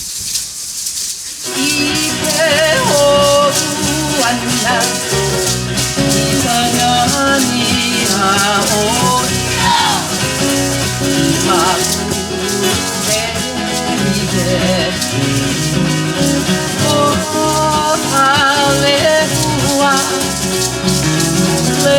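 Hawaiian hula music: a shaken rattle alone for about a second and a half, then plucked strings and a wavering melody come in and play on steadily.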